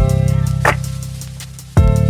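Background music with a steady beat: deep bass notes about once a second, a sharp hit between them and ticking cymbals above.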